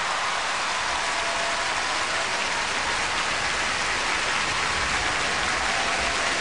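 Large arena crowd applauding steadily in an ovation at the end of a figure skating program.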